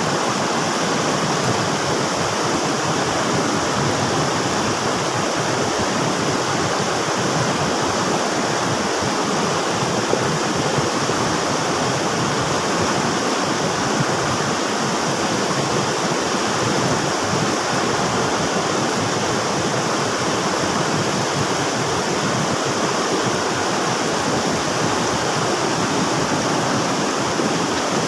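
Rushing river water, a steady, full churning rush with no pauses or changes.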